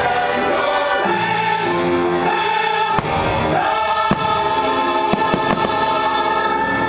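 Fireworks show soundtrack with a choir singing over music, and fireworks bursting through it; two sharp bangs stand out about three and four seconds in.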